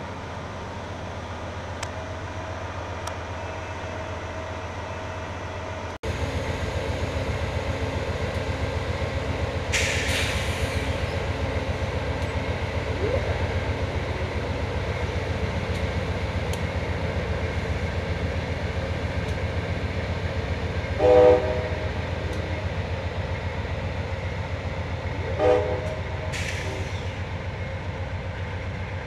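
Amtrak GE Genesis diesel locomotive running with a steady low drone. Its air horn gives two short blasts about four seconds apart, the usual signal that the train is about to move off. Brief hisses of air come twice.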